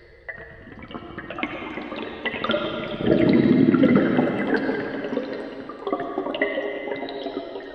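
Underwater air bubbles from a tire pump, heard through a hydrophone: a surge of bubbling with many short ringing plinks, loudest about three to four and a half seconds in and then thinning out, with added reverb.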